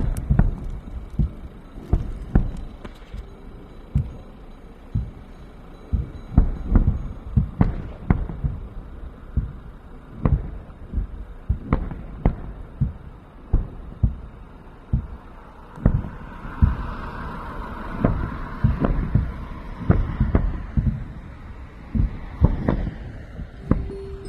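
An irregular series of short, dull low thumps, about one to two a second.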